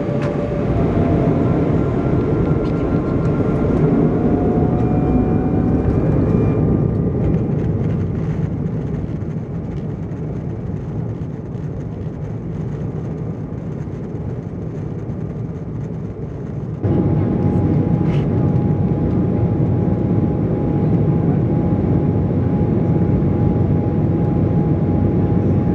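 Jet engine noise inside the cabin of an Embraer E190 over the wing, from its General Electric CF34-10E turbofans along with the rumble of rolling on the runway during takeoff. Engine whine rises in pitch over the first few seconds as thrust comes up. About two-thirds of the way in, the sound jumps suddenly louder and a steady high whine holds to the end.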